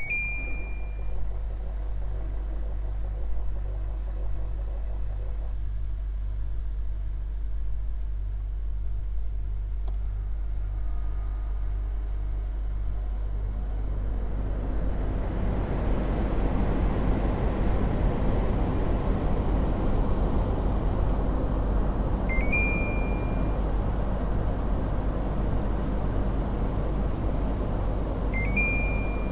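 Air conditioner running with a steady low hum. About halfway through, the rush of air grows louder and stays up. Short high electronic beeps sound at the start, about two-thirds of the way in, and near the end.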